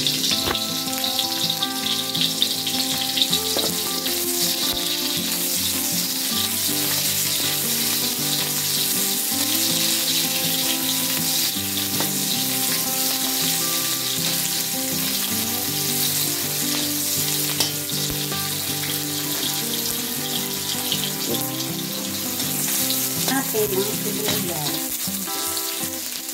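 Chopped garlic and onion sizzling steadily in hot oil in a wok, being sautéed and stirred with a slotted metal spatula.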